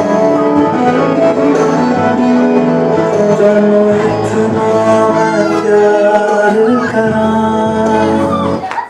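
Recorded song with held sung notes over instrumental backing, cutting off abruptly near the end.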